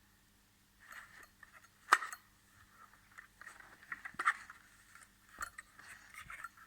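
Rustling and scraping as the router and its packaging are handled by hand, broken by several sharp clicks and knocks. The loudest click comes about two seconds in and another about four seconds in.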